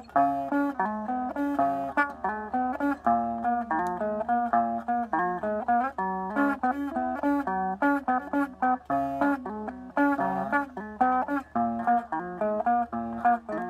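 Electric guitar played as a quick, continuous line of single plucked notes that change pitch note by note, with a faint steady low hum beneath.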